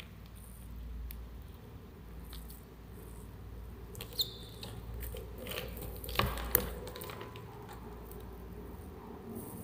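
Faint scratching and clicking from a black scorpion and a giant centipede struggling on loose substrate, over a low steady hum. There is a short squeaky click about four seconds in, and two sharp clicks a little after six seconds in.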